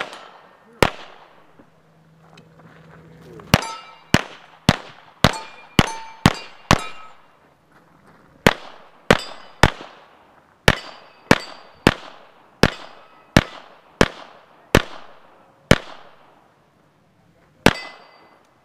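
Pistol fired in quick strings, about twenty shots roughly half a second apart with a couple of short pauses. Many shots are followed by the ringing clang of steel plate targets being hit.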